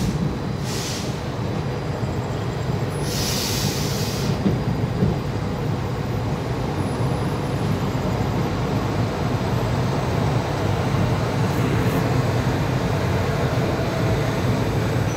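Passenger train rolling slowly out of a station, heard from an open coach doorway: a steady rumble of wheels on the track that grows a little louder as it gathers speed. A brief hiss comes about three seconds in.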